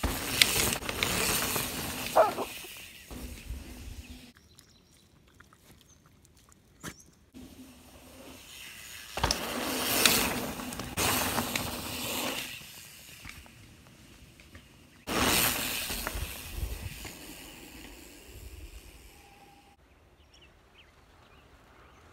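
Santa Cruz Nomad mountain bike riding past on a dirt trail: the rush of knobby tyres rolling over dirt swells up and fades away three times, each pass lasting a few seconds.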